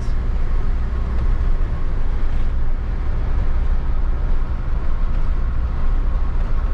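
Cabin noise of a Mobilvetta K-Yacht 79 motorhome on a Fiat Ducato chassis cruising at a steady speed: a steady low rumble of the diesel engine and tyres on the road.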